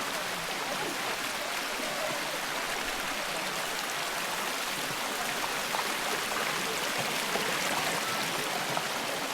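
Water of a limestone waterfall running over its rocks, a steady rush of noise with no change in strength.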